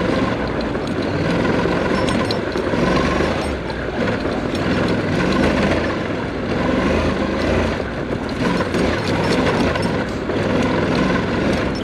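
Honda NC700X parallel-twin engine running steadily while the motorcycle rides over dirt, under a dense wash of wind and ride noise.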